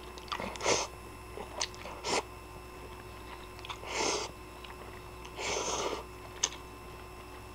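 Instant ramen noodles being slurped from a bowl and chewed. There are several short, noisy slurps a second or more apart, the longest about three-quarters of the way in, with small wet mouth clicks between.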